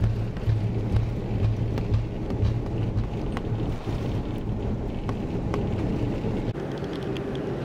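Cabin rumble of an Airbus A330-300 rolling out on the runway just after touchdown, a steady noisy roar whose deep low part eases about three seconds in as the aircraft slows.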